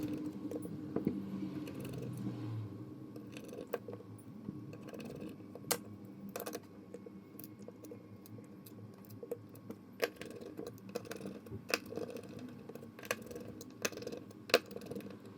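Small plastic and metal parts being handled: scattered light clicks and taps, a few of them louder, over a faint steady hum.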